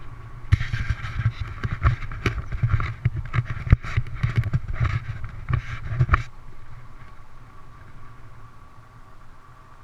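Rattling knocks and heavy rumble from a bike-mounted action camera being jostled as a fat-tire bike rolls along a paved path, stopping abruptly about six seconds in; quieter steady riding noise follows, with a faint steady whine underneath.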